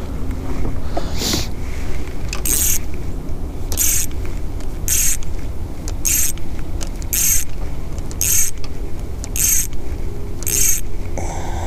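Rough rubbing swishes about once a second: a fleece sleeve brushing across the chest-mounted camera's microphone as the arm works a fishing rod and reel, over a steady low rumble.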